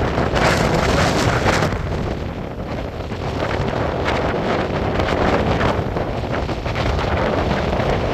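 Strong dust-storm wind buffeting the microphone, a loud rushing roar that swells and eases in gusts and eases a little about two to three seconds in.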